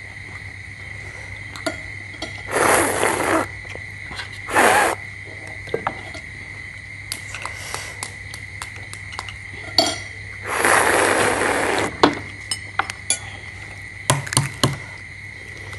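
Eating sounds at a table: spoons clinking and tapping on bowls and balut eggshells being cracked and peeled, with three louder noisy sounds of about a second each, about three, five and eleven seconds in.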